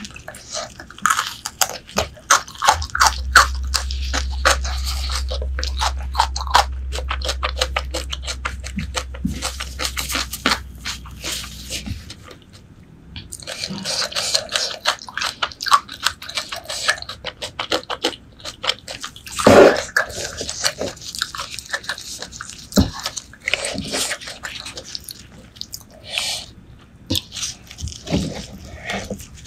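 Close-miked chewing and biting of braised pork leg: a dense run of quick wet mouth clicks. A low hum sits underneath from about three to twelve seconds in, and one louder bite or smack comes past the middle.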